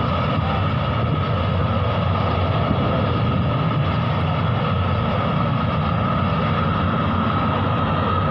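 A geothermal drilling well venting a thick plume of steam and gas in an uncontrolled leak, heard from about 800 m away. It makes a steady rushing noise with a constant high whistle above it.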